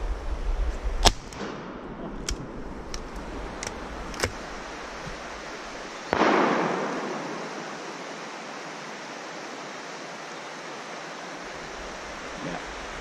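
Shotguns firing: a sharp crack about a second in and several fainter reports over the next few seconds, then a heavy blast about six seconds in whose echo rolls away over a second or so.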